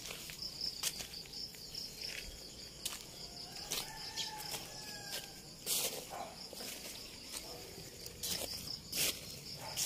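A cricket chirping in a steady pulsing trill, with scattered soft clicks and rustles.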